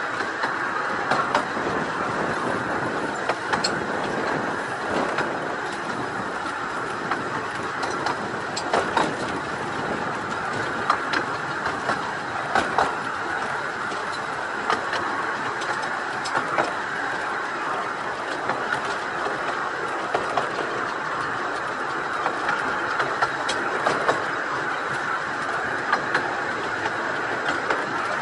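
Carriages of a 15-inch gauge miniature steam railway running along the track: a steady wheel-on-rail rumble with irregular sharp clicks as the wheels pass over rail joints.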